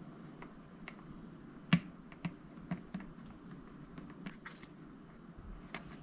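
Irregular light clicks and taps of small toy parts being handled, with one sharper click a little under two seconds in.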